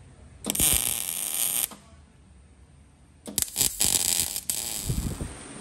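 Two short MIG tack welds on a steel bumper, each a crackling hiss about a second long, with a quiet pause between them.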